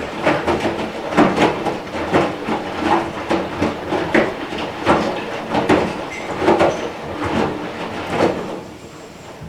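Front-loading washing machine running, with a rhythmic clattering knock roughly every three-quarters of a second, dying away near the end.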